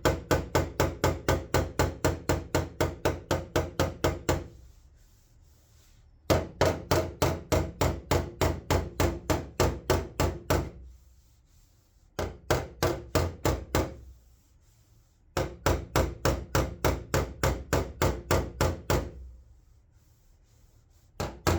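Panel hammer tapping a steel car body panel in quick runs of about five strikes a second, each hit ringing briefly, with short pauses between runs: knocking down a high spot in the panel.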